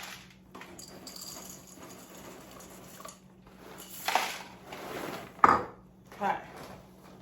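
Corn Chex cereal being scooped and poured by the cupful into a bowl: a soft dry rustle, then a few clatters of the measuring cup against the bowl, the sharpest about five and a half seconds in.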